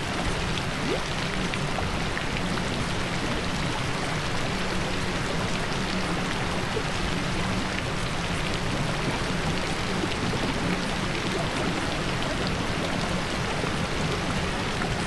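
Recorded rain ambience: a steady, even hiss of rainfall with scattered drop ticks, used as the masking track of a subliminal audio.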